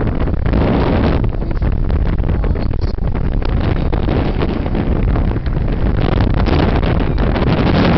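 Steady road and engine noise of a moving car, with wind buffeting the microphone in rapid flutters throughout.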